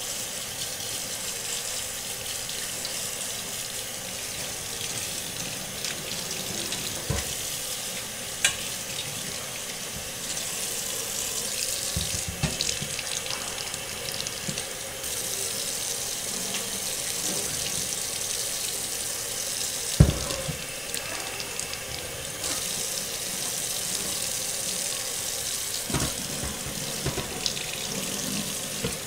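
Kitchen faucet running in a steady stream into a stainless steel sink, water splashing over brass trumpet tubing as it is rinsed clean of soap. A few sharp knocks come through, the loudest about two-thirds of the way in.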